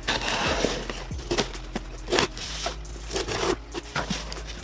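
Small scissors cutting open a cardboard shipping box, a noisy slicing sound in the first second, followed by several short knocks and rustles of cardboard as the box is handled.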